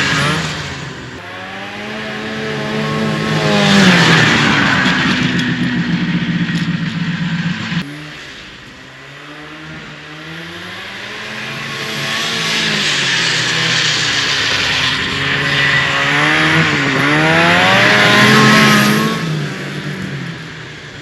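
1974 Arctic Cat Lynx snowmobile's fan-cooled 340 two-stroke engine revving up and down as the sled is ridden. It rises and falls in pitch and loudness, loudest about four seconds in and again near the end.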